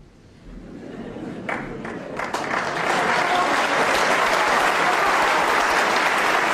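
Snooker audience applauding, a few claps growing into full, steady applause over the first three seconds, greeting a successful snooker.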